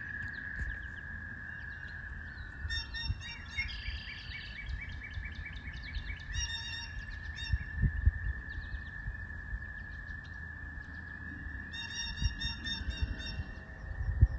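Wild birds calling in woodland: three short bursts of rapidly repeated high chirping notes about three, seven and twelve seconds in. A steady high tone and a low rumble run underneath.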